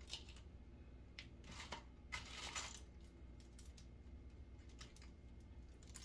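Faint rustling in a few short bursts during the first three seconds, then scattered light clicks: curled sisterlocks being shaken and fluffed.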